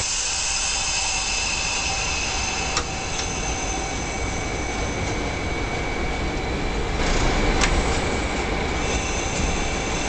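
ND5 (GE C36-7) diesel-electric locomotives hauling freight trains past: a steady rumble of engine and wheels on rail, with steady high-pitched squealing tones from the wheels. Two sharp clicks come, about three seconds in and near the end. The sound shifts abruptly about seven seconds in as one train gives way to another.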